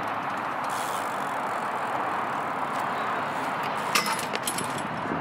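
BMX bike tyres rolling on skatepark concrete with a steady hiss, then a sharp metal clack about four seconds in as the bike hits the steel rail for a grind, followed by a few lighter clicks.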